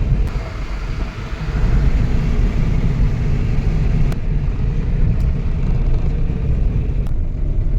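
Motor vehicle running, a steady low rumble with a brief dip about a second in.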